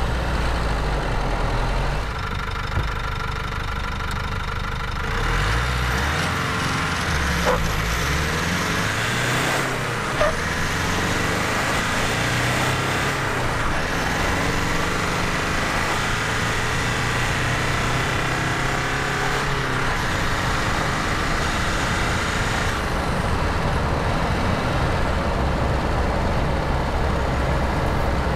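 Nissan Navara NP300 2.3-litre turbo diesel accelerating hard from a standing start, its engine note climbing and dropping back at the gear changes, over steady road and mud-tyre noise.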